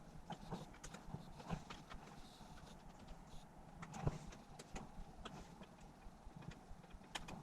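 Irregular light clicks and taps from handling laptop parts and small screws, over a faint low hum.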